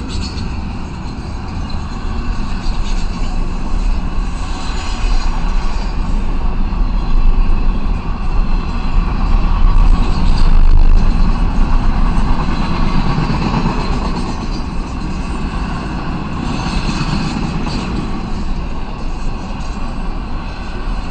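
Intermodal freight train's double-stack container well cars rolling past, a steady rumble and clatter of steel wheels on rail that swells loudest about ten seconds in.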